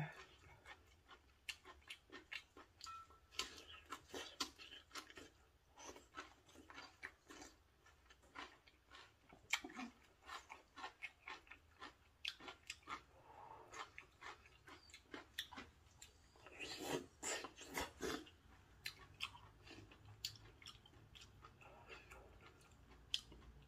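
Close mouth sounds of a person chewing a mouthful of maratang noodles: soft, irregular wet clicks and smacks, with a louder run of them about seventeen seconds in.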